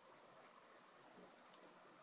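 Near silence: faint room hiss with one or two soft taps.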